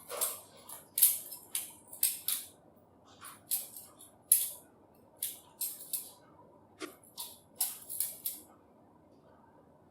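Balisong (butterfly knife) trainer being flipped through tricks: the handles and blade clacking against each other in quick, irregular clicks, with brief pauses between moves.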